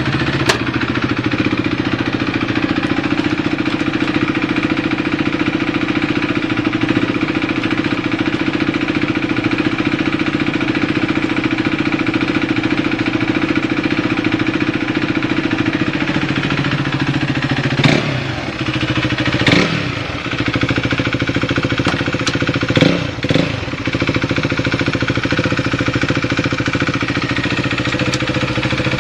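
KTM RC390's single-cylinder engine idling steadily, with several quick throttle blips in the second half that rev it up and let it drop back to idle. The idle is stable with no abnormal noises.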